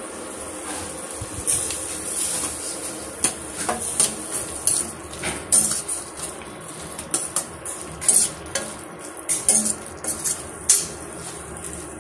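Metal spatula repeatedly scraping and clinking against a stainless steel pan while stirring mushrooms and spice powder. A steady sizzle of frying runs underneath.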